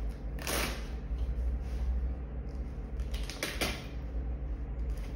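Fabric strap of a shopping trolley bag being fastened to the trolley's metal frame by hand: a short rustling snap about half a second in, then a few quick clicks and rustles around three and a half seconds in, over a steady low hum.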